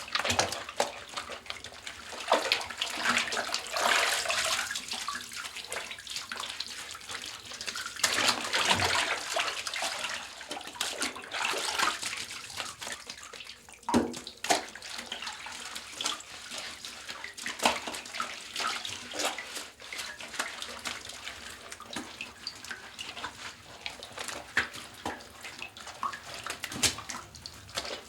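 Someone washing in a bathtub: water splashing and sloshing in uneven bursts, with scattered sharper splashes and knocks.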